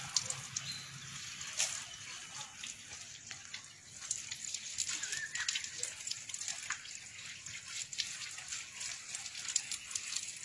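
Water from an outdoor shower running and splashing: a steady hiss with the patter of many drops.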